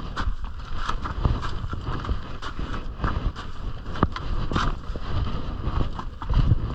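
Crampon footsteps crunching and scraping on glacier ice, with irregular sharp clicks, over a low rumble of wind on the microphone.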